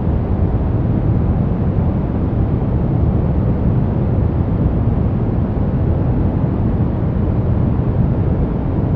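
Steady brown noise: an even, deep rushing hiss weighted toward the bass, with no changes or events.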